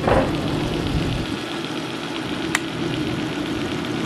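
1930s General Electric belt-drive refrigerator's open-drive rotary compressor and its belt-driven electric motor running steadily with a fast rattle, working and cooling again. A single sharp click about two and a half seconds in.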